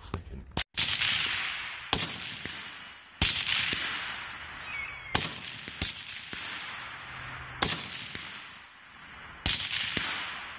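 Rifle shots fired one at a time, seven in all at uneven intervals, each a sharp crack trailing off in a long echo.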